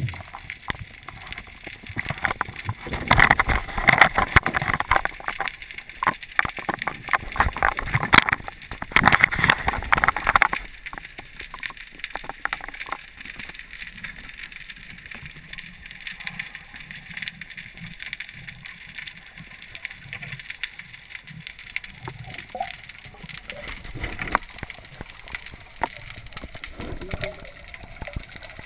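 Water and crackling clicks heard underwater through a camera housing, with two louder rushes of water a few seconds in and again about nine seconds in, then quieter scattered clicks.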